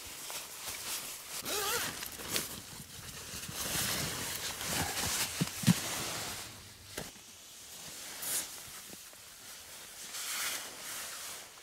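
Rustling and handling noises of someone moving about in a sleeping bag, with one sharp knock a little past halfway.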